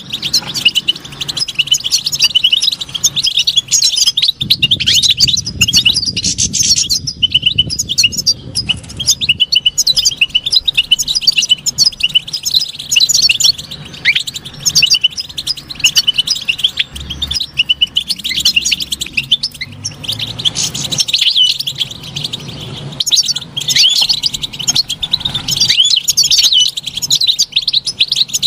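European goldfinch singing: a fast, unbroken stream of high twittering chirps and trills.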